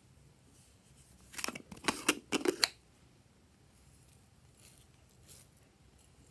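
Hard plastic strawberry-shaped bottle being opened and handled: a quick cluster of sharp clicks and scrapes over about a second and a half, then a few faint scratchy sounds as its flakes are tipped out onto the slime.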